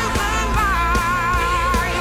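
Pop song with a sung melody over a steady beat.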